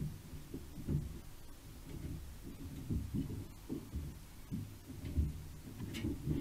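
Dull, irregular low thumps, about two a second, over a low rumble. A brief faint scratch sounds near the end.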